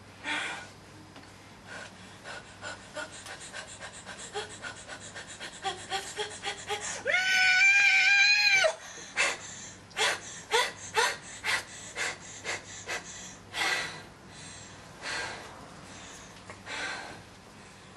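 A woman's panting breaths that quicken into a fast run, break into a held high cry about halfway through, then turn to loud separate gasps about once a second that thin out.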